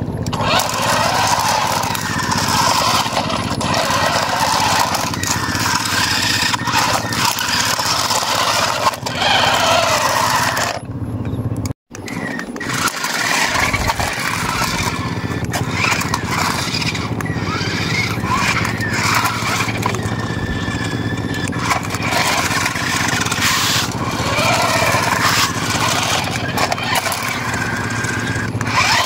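Small electric motors and plastic gearboxes of toy RC cars whining steadily as a red monster truck tows a blue stunt car by chains on concrete, with tyres and chains scraping along. The sound drops out for a moment about twelve seconds in, then resumes.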